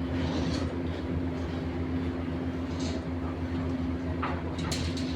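A machine engine running with a steady low drone, with a few short knocks about four seconds in.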